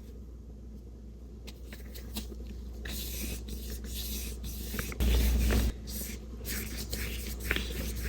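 Paintbrush strokes of acrylic paint on gesso-primed mixed media paper: soft brushy scratching that grows busier about three seconds in, with a low thump about five seconds in over a steady low hum.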